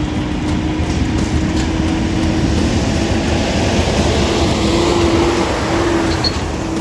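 Heavy diesel engine of a Cat 349F hydraulic excavator running while it loads dirt into a bottom-dump truck: a steady, loud drone with a humming tone that swells and rises a little about two-thirds of the way through.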